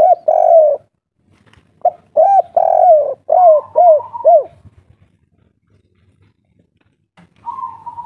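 Spotted dove cooing: a short phrase right at the start, then a longer run of about six arching coo notes about two seconds in, and a softer, higher drawn-out note near the end. The song is of the kind Indonesian dove keepers call 'kuk 3'.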